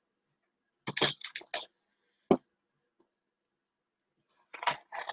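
Short clatters and knocks of kitchen things being moved about while rummaging for a bag of raisins: a quick cluster of several about a second in, a single knock a moment later, and another cluster near the end.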